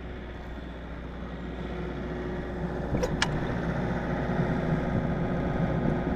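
Generator engine running steadily, growing gradually louder, with two sharp clicks about three seconds in.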